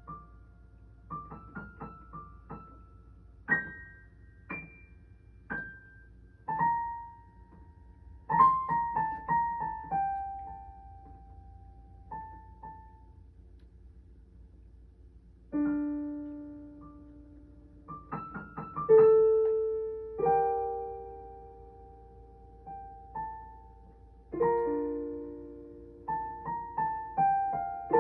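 Solo piano played slowly and freely: scattered single notes and short quick runs higher up, with held lower chords coming in about halfway through and again near the end.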